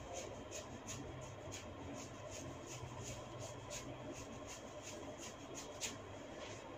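Hair cracking: sections of scalp hair tugged one after another, each giving a small snapping click, about two or three a second, with a sharper snap near the end.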